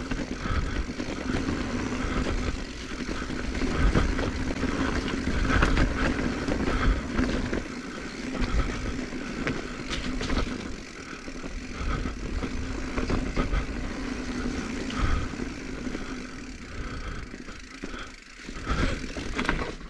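2021 Giant Trance X 29 3 full-suspension mountain bike descending a rough dirt trail: tyres rolling over dirt and rocks with scattered knocks and rattles, wind rumbling on the camera mic, and a steady hum through the first part that fades about two-thirds of the way in.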